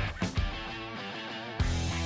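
Background music with guitar and a steady beat; the high end drops out for about a second in the middle, then the full sound comes back in.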